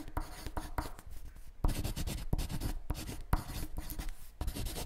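A pen scratching across paper in quick handwriting strokes, with short pauses between strokes.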